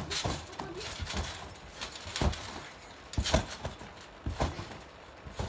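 Thuds of a child's feet landing on a trampoline mat while bouncing and flipping, coming irregularly about once a second, the loudest about two and three seconds in.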